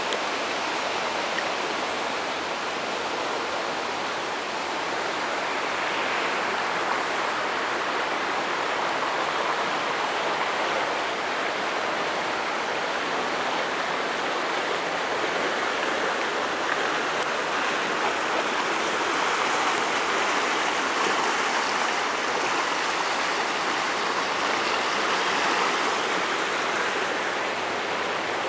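The flooded Weiße Elster river rushing, a steady, even rush of fast-moving floodwater.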